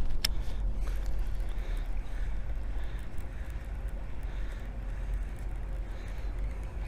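Steady low rumble of wind buffeting the microphone, with one sharp click about a quarter second in.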